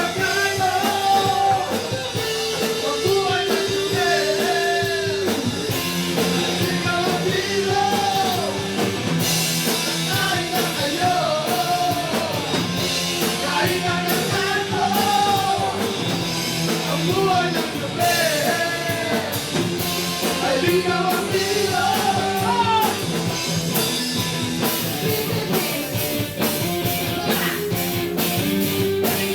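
Rock song with a singing voice over electric guitar, bass and a drum kit; the vocal line stops a few seconds before the end, leaving the band playing with busy cymbals.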